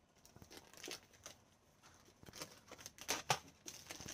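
Plastic packaging being handled and pulled open by hand: a run of light crinkles and crackles that grows louder and busier about three seconds in.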